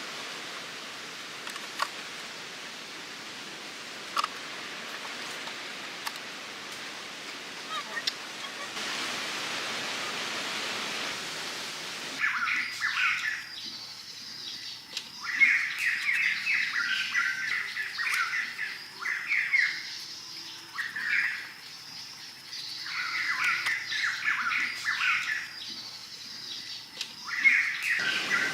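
A steady hiss for about twelve seconds, then repeated bursts of high-pitched chirping calls, each burst lasting about a second.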